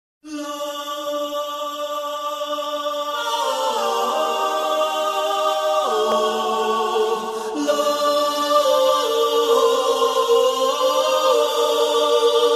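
Background music of sustained chords, choir-like, held and shifting slowly, with more voices joining about three seconds in.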